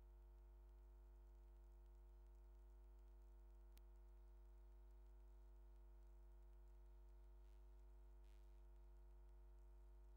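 Near silence: a faint steady hum, with a single click a little under four seconds in.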